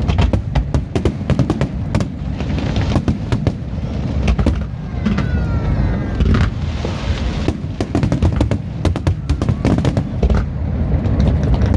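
Fireworks bursting in a dense, continuous barrage of bangs and crackles over a deep rumble, with a few whistling shells falling in pitch about five seconds in.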